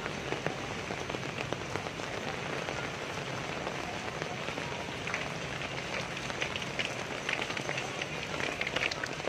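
Rain falling steadily, with a busier run of sharp drop ticks from about five seconds in.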